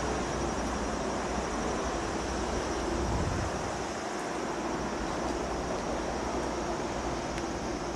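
Steady low hum and hiss with a faint constant tone running through it; the low rumble eases a little about four seconds in.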